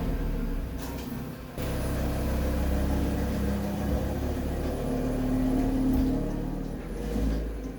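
Audi RS3 8V's turbocharged 2.5-litre five-cylinder running through Unitronic mid-pipes while the car is driven, a steady low drone that steps up suddenly about a second and a half in.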